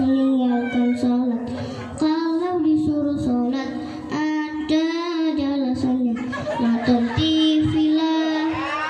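A boy singing into a microphone over a PA system, long held notes that waver and bend in pitch, phrase after phrase with short breaths between.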